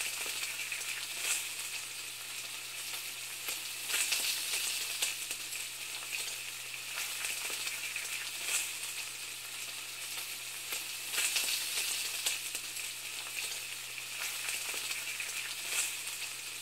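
Steady sizzling, crackling hiss like food frying in a pan, with a faint low hum beneath and brief louder swells every few seconds.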